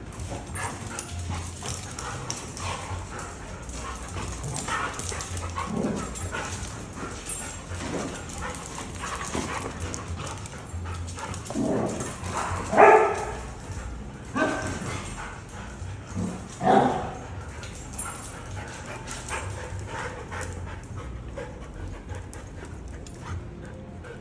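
Two dogs, a husky and a small white-and-brown dog, play-fighting with short dog vocalisations throughout and a few louder barks near the middle.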